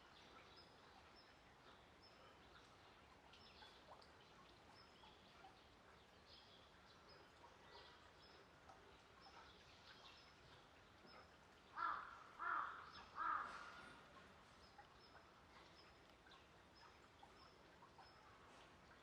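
Quiet outdoor ambience with a small bird's faint, high chirps repeating about twice a second, and a bird calling loudly three times in quick succession about twelve seconds in.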